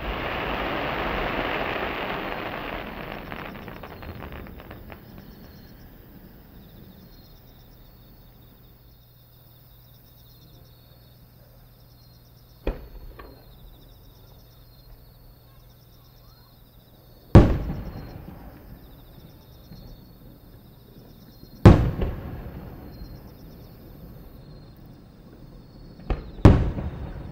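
Aerial firework shells bursting overhead: a hiss from a burst just before fades over the first four seconds, a small pop comes about 13 seconds in, then three loud booms with echoing tails about 17, 22 and 26 seconds in, the last a quick double bang.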